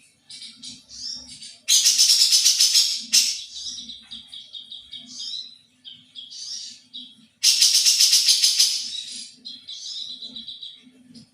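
A songbird singing a varied song of quick high chirps and whistles, broken twice by a loud, rapid rattling chatter lasting about a second and a half.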